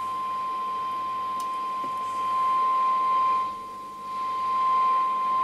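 A steady test tone from a valve radio's loudspeaker, the radio passing an injected signal-generator tone while its stages are tuned. The tone grows louder about two seconds in, drops away briefly near four seconds, then comes back a little stronger, as the adjustment peaks the output.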